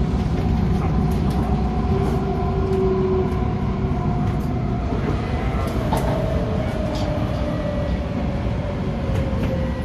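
Inside an MTR Tung Chung Line A-Train carriage: a steady rumble of wheels on rail, with motor tones falling in pitch over the second half as the train brakes into a station, and a few light clicks.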